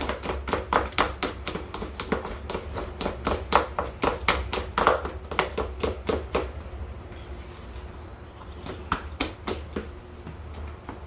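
Soft bread dough being beaten by hand in a bowl: quick rhythmic slaps, about four a second, that thin out after about six seconds into a few scattered ones.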